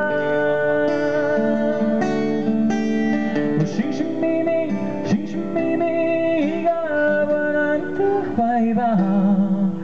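A man singing a ballad to his own strummed acoustic guitar, holding a wavering note near the end.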